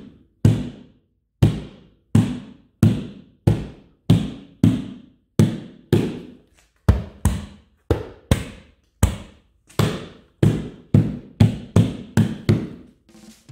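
An open hand slapping repeatedly on the Tesla Model 3's glass roof, about two to three sharp thumps a second, quickening toward the end.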